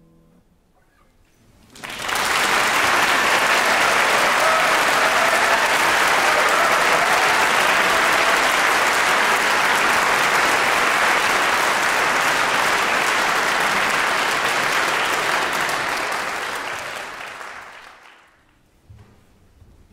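Audience applauding, breaking out suddenly about two seconds in and dying away near the end. Just before it, the last note of a classical guitar fades out.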